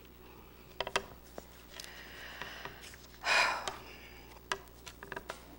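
Paper rustling as a sheet is handled at a lectern, with scattered small clicks and knocks; the loudest rustle comes about three seconds in.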